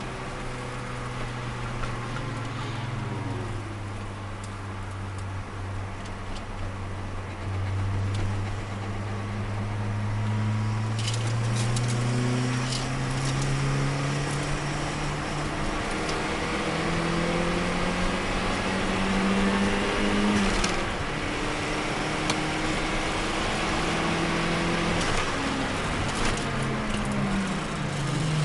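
Turbocharged Nissan Micra engine heard from inside the cabin while lapping a track. Its pitch climbs slowly under acceleration, drops sharply at gear changes about 12 and 21 seconds in, then falls away near the end as the car slows for a corner.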